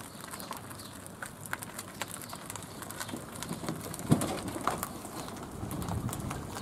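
Quiet outdoor ambience with scattered short bird chirps, and one low thump about four seconds in.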